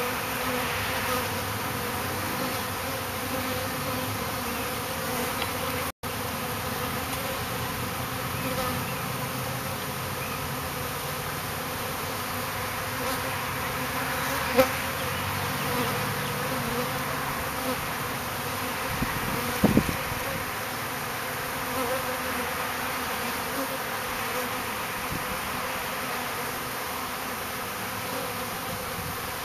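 Honeybees of a newly installed colony buzzing steadily as they fly in and around the hive entrance. A couple of brief knocks sound over the buzzing, one about halfway through and one about two-thirds of the way through.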